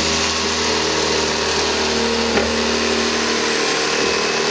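Electric fillet knife running with a steady motor hum and a faint rasp as its reciprocating blade slices a catfish fillet off the skin.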